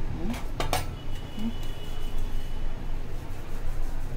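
Two or three light metallic clinks in the first second, the brass chakli press knocking against a steel plate, over a steady low hum.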